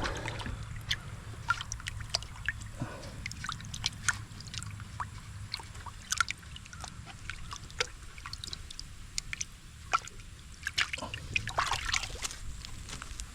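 Water sloshing and dripping in short splashes as a rock is rinsed off by hand.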